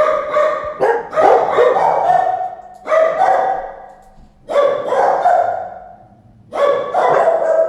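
A dog barking in quick runs of two or three barks, a run about every one and a half to two seconds.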